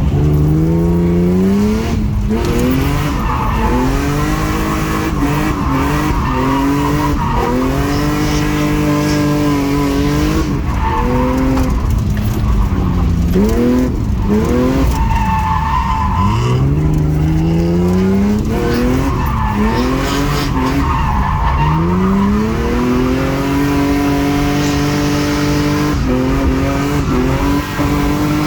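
Drift car engine revving hard, its pitch repeatedly climbing and then dropping back as the driver works the throttle and shifts, with tires squealing through the slides.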